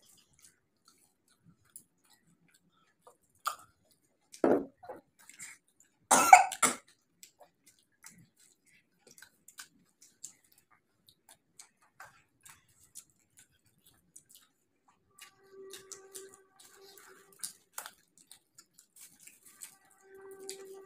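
A person coughing twice, about two seconds apart, amid soft chewing and crunching of fried samosa. Later a short steady hummed note sounds twice.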